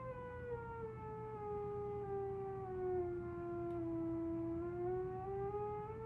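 Moog Theremini playing its classic theremin voice with pitch correction on. A held tone around C5 steps down note by note to about E4 near the middle, then steps back up to C5, like a scale played down and up by hand.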